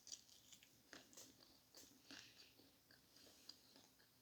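Faint chewing close to the microphone: a person eating, with soft wet mouth clicks and small crunches at irregular intervals.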